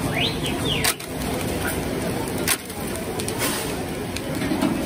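Metal kebab skewers clinking as bundles of them are lifted and turned over a charcoal grill, with two sharp clanks about one second and two and a half seconds in, over steady street noise. A few short rising chirps come right at the start.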